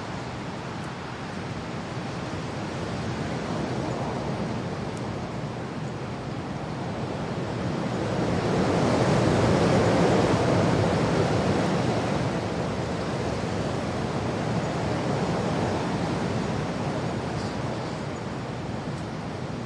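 Wind with rain: a steady rushing noise that swells into a stronger gust about halfway through, then eases back.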